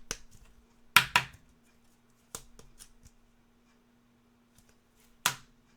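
Stiff trading cards being handled and flipped through: a few sharp snaps and taps, the loudest about a second in and near the end, over a faint steady hum.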